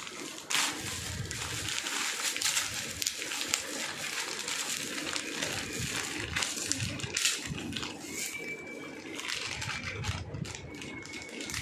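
Metallic foil gift wrap crinkling and tearing as it is pulled off a present by hand, a dense run of irregular crackles and rustles.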